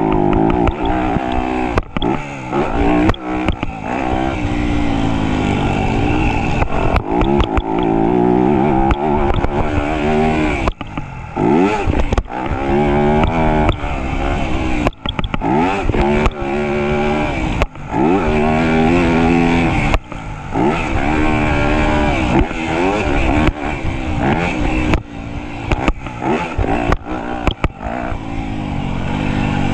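Motocross dirt bike engine revving hard in repeated surges: its pitch climbs as it accelerates, then drops suddenly as the throttle shuts or it shifts, with the throttle cutting off briefly several times. Knocks and clatter run through it.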